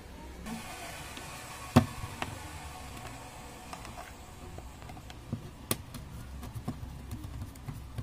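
Scattered clicks and knocks of an electric kettle's plastic body being handled and opened up for repair. The loudest is a single sharp knock about two seconds in, with another near six seconds.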